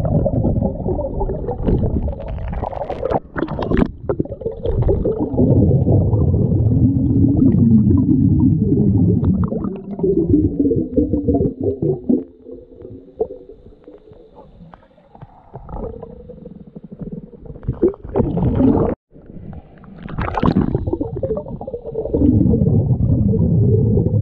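Muffled underwater water noise picked up by a submerged camera: a low rumbling and gurgling, with a few sharp knocks, dropping quieter for several seconds past the middle.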